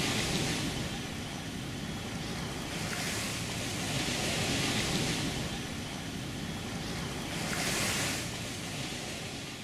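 Small ocean waves washing onto the shore, the surf swelling and falling back in several surges a few seconds apart, fading out near the end.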